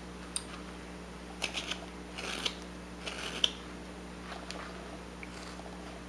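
Whittling knife slicing shavings off a basswood block: several short, crisp scraping cuts, roughly a second apart.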